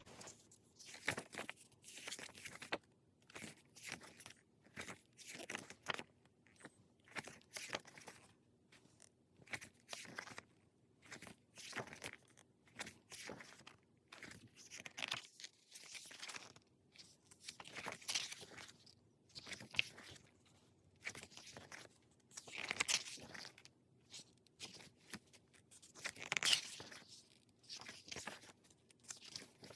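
Pages of a K-pop album photo book being turned one after another, the stiff paper swishing and crinkling about once every second or two, with a few louder flips.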